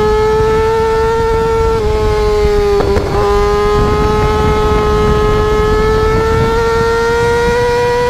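Yamaha R6 inline-four engine running at high revs, its pitch climbing slowly as the bike accelerates; a quick upshift about three seconds in briefly drops the pitch. Wind rushing on the microphone runs underneath.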